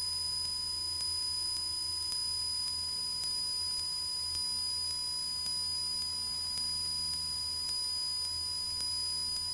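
Cessna 172's engine running steadily at climb power, heard as a low muffled hum through the headset intercom recording, with a steady high electrical whine over it.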